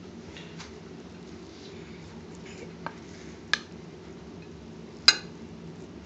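Cooked rice being served from a pot onto a plate with a spoon: three sharp knocks and clinks of the utensil against the pot and plate, the loudest about five seconds in, over a steady low hum.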